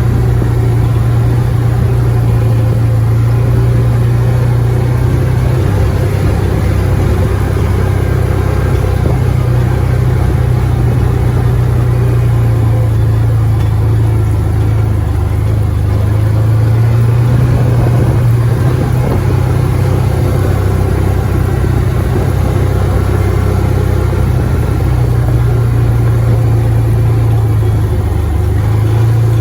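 Side-by-side UTV engine running steadily as it is driven, its pitch rising and falling a little and dipping briefly near the end.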